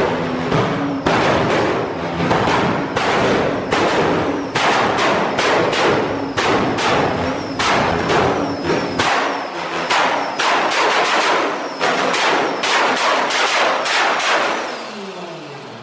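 Car exhaust popping and banging in a rapid, irregular string of sharp cracks, several a second, easing off near the end.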